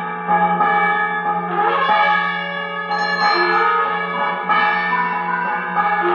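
Temple bells ringing on and on, fresh strikes overlapping the ringing of earlier ones, over a steady low hum.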